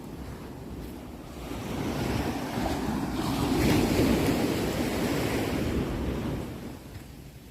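Sea waves washing on a shore. One wave swells up about a second and a half in, is loudest around the middle and falls away near the end.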